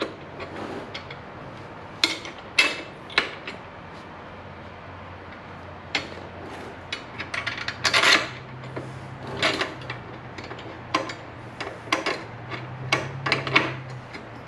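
Small metal parts clinking, scraping and clicking as long screws and spacers are handled and pushed through a chrome bracket by hand: irregular light clacks, some sharper than others.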